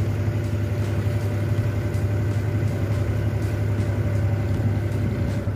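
Abra water taxi's diesel engine running at a steady speed as the boat crosses the creek: a constant low drone with no change in pitch.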